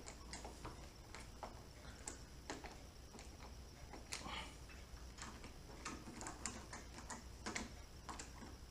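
Faint, irregular clicks and light taps of hand tools and small parts being handled at a motorcycle's handlebar, about one or two a second.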